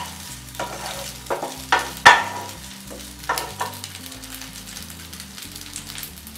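Wooden spatula stirring and scraping semolina balls around a non-stick frying pan, with several sharp strokes, the loudest about two seconds in. After about three and a half seconds the stirring stops and only the oil's sizzle and light crackle on low flame is left.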